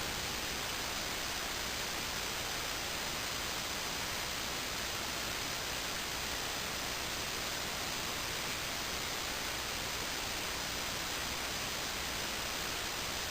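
A steady, even hiss with nothing standing out above it.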